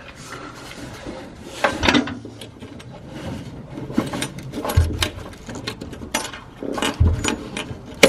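Metal and plastic clicks, knocks and rattles as a fuel line's quick-connect fitting on the fuel tank's pump hat is worked loose with a fuel-line disconnect tool, with a few louder knocks about two, five and seven seconds in.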